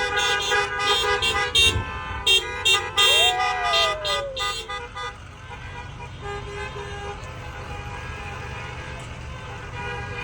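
Bus's multi-tone musical horn playing a quick run of short blasts at several different pitches, then dropping about halfway through to a quieter steady rumble of engine and traffic.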